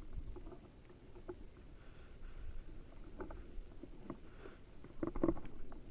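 Faint handling noise: a few short clicks and knocks over a low rumble, with a small cluster about five seconds in.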